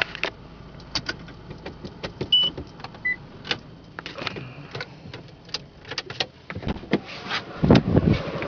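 Car cabin while the car creeps along: many irregular clicks and rattles from the interior, two brief high beeps a few seconds in, and a louder low rumble near the end.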